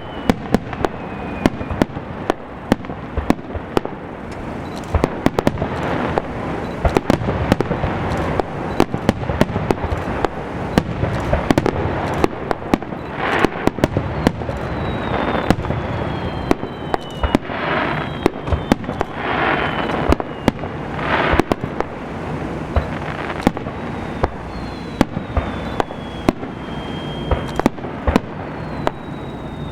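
Aerial fireworks display: a rapid, continuous string of sharp bangs and pops from bursting shells, with a few swells of hiss midway and thin high whistles falling in pitch in the second half.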